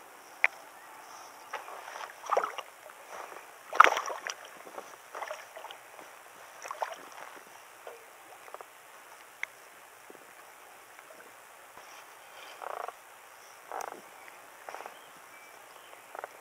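Irregular short rustles, clicks and knocks from hands handling a caught bass and the lure: several sharp clicks, the loudest about four seconds in, with quieter scuffs between.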